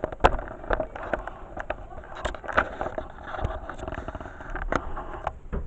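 Scattered light clicks and knocks of hands handling things, with faint muffled voices behind.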